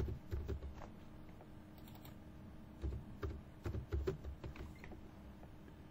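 Computer keyboard typing, a few short runs of keystrokes as a line of code is edited.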